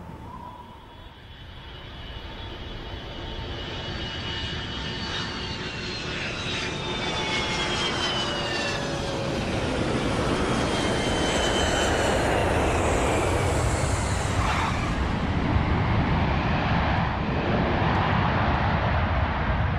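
Jet engines of a landing three-engined wide-body airliner. A dense rumble grows steadily louder, and high whines slide downward in pitch as it passes.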